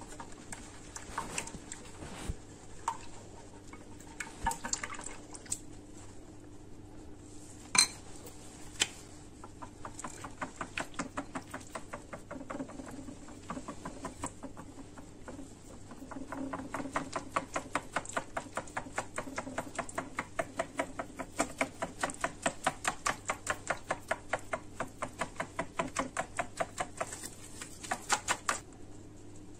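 Whisk beating flour into crêpe batter in a glass bowl, its wires ticking against the bowl. It starts with a few scattered knocks and one sharp clack about eight seconds in, then settles into a steady quick rhythm of about three strokes a second.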